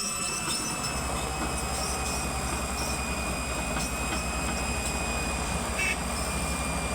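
JCB excavator's diesel engine running steadily, an even low pulsing with a steady high whine over it.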